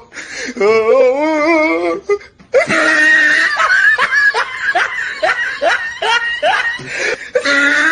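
Laughter: a wobbling laugh, a short break about two seconds in, then a long run of quick repeated laughs.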